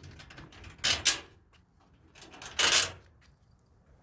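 Two short bursts of metallic clicking and scraping, one about a second in and one near the middle, as the two screws holding the General Electric dryer's top panel are worked out by hand.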